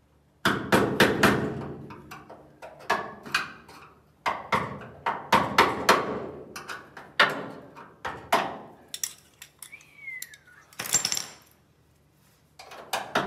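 Hammer blows on a steel punch at a 1965 VW Beetle's door hinge, driving out a pin. The sharp metal-on-metal strikes come in several quick runs, and a short harsh noise follows near the end.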